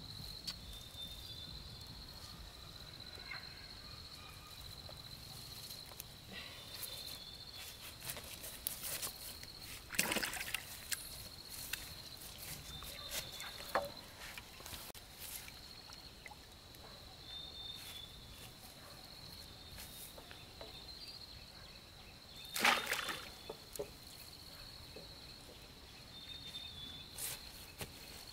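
Water sloshing and splashing, with two louder splashes, one about ten seconds in and one about twenty-three seconds in, over a steady high-pitched drone.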